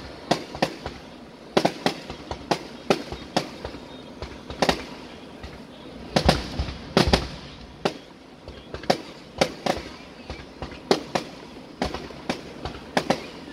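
Fireworks display: shells bursting in an irregular run of sharp bangs, sometimes several a second, with a heavier cluster of deep booms about six to seven seconds in.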